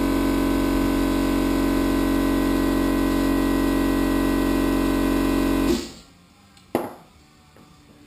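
Music with a held, unchanging chord that cuts off abruptly about six seconds in. It leaves quiet room tone, broken by a single sharp click about a second later.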